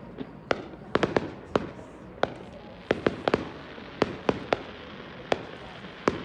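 Distant fireworks shells bursting in an irregular string of sharp bangs, some coming in quick pairs and clusters, over a steady low background.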